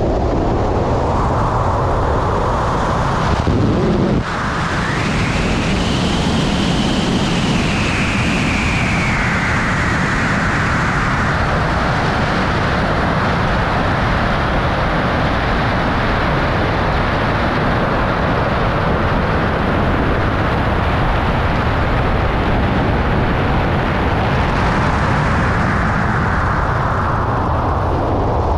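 Loud rushing wind over a wingsuit flyer's camera in flight, with a whistle that rises sharply about four seconds in and then slowly sinks and fades into the steady rush.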